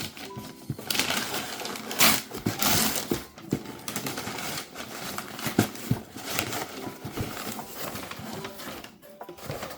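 A shipping package being opened by hand: irregular rustling, crinkling and tearing of packaging, with scattered clicks and knocks, busiest about two to three seconds in.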